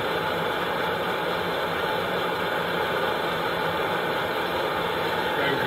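Coleman Exponent Denali liquid-fuel stove burning at full output with its fuel valve open after priming: a steady, even rush of pressurised fuel burning at the burner, a sign the generator is hot and the stove is running properly.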